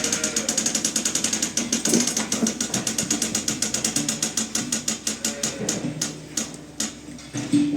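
Rapid mechanical clicking, about ten clicks a second, fading about six seconds in, with a single knock near the end.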